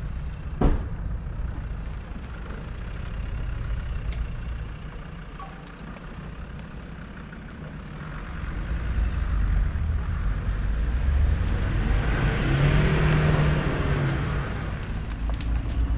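A Land Rover Discovery's engine running as the 4x4 crawls off-road over rough forest ground. It is quieter in the first half, then grows louder from about halfway as the engine pulls harder, and is loudest near the end. There is a single short knock about a second in.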